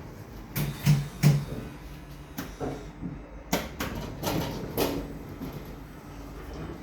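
UNIT lift doors working with a series of knocks and clatters: two loud knocks about a second in, then a run of rattling clunks a few seconds later, over a low steady hum.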